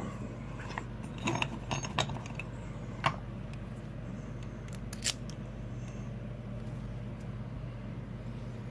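A handful of scattered small metallic clicks and taps from a padlock and its lock-gutting tools being handled, over a steady low hum.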